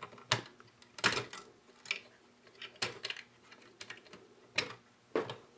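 Irregular clicks and taps of plastic and wire connectors being handled inside an electric meter's plastic housing as the spade connectors on its internal leads are worked loose.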